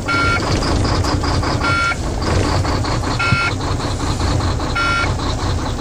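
Volvo semi truck's diesel engine running just after being jump-started, heard from inside the cab, with a steady low rumble. A dashboard warning beep sounds four times, short and evenly spaced about one and a half seconds apart.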